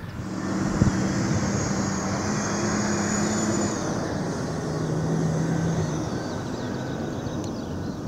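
Heavy earthmoving machine's diesel engine running steadily, its note settling slightly lower about halfway through, with a single sharp knock about a second in.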